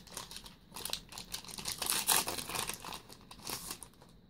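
Foil Yu-Gi-Oh Magic Ruler booster-pack wrapper crinkling and rustling in the hands in a run of irregular bursts, which stop near the end.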